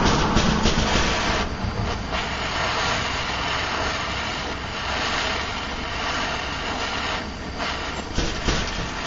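Gas torch flame running steadily, with a steady hiss, as it heats the spine of a forged knife blade to draw a differential temper. It is a little louder for the first second and a half, then evens out.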